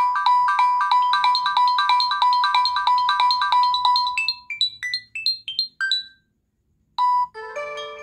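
Google Pixel ringtone playing: a fast run of repeated electronic beeps, then a few short notes at changing pitches before it stops about six seconds in. After a brief pause the next ringtone starts with a short beep and then held notes.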